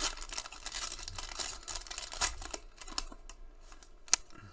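Foil wrapper of a Panini Prizm basketball card pack crinkling as it is pulled open, the crackling thinning out after about two seconds, followed by a single sharp click near the end.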